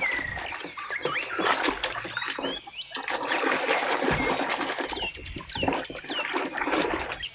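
Water splashing and sloshing as a muddy toy gun is washed clean by hand, in a run of uneven splashes and scrubbing knocks. Birds chirp a few times in the background in the second half.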